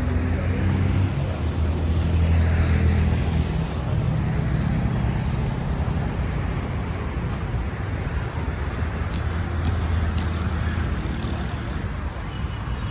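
Road traffic: vehicle engines rumbling steadily as cars pass, swelling and easing off over the seconds.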